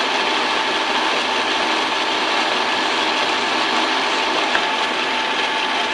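Lathe running steadily with a faint constant whine while the cutting tool takes light cuts along a long, slender valve pin held between the collet chuck and the tailstock centre.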